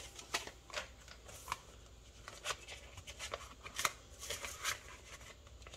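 Polymer banknotes being handled and flicked through by hand, making short, irregular crisp rustles and crackles.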